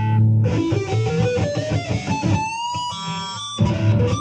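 Electric guitar playing a lead line high on the neck: a quick run of picked notes, then a held note bent upward at the 22nd fret about two and a half seconds in, ringing on.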